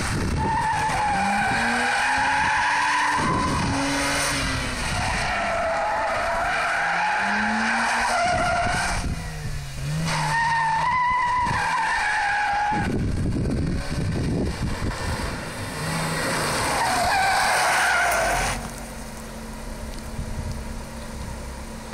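Mazda RX-8 drifting: tyres squealing in long wavering screeches, with its two-rotor Wankel rotary engine revving up and down beneath. Near the end the squeal stops and the engine settles to a steady idle.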